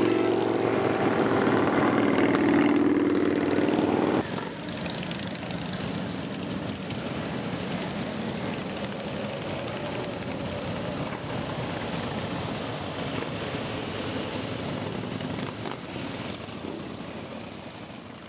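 A stream of cruiser motorcycles riding past, their engines making a loud, steady, layered drone. About four seconds in the sound drops abruptly to a quieter mix of motorcycle engines, which fades out near the end.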